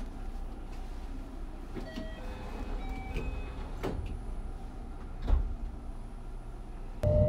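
Inside a limited express train cabin as the train pulls out: a steady low rumble with scattered knocks and clunks, the loudest about five seconds in. Near the end the sound suddenly gets louder, with a tone rising slightly in pitch.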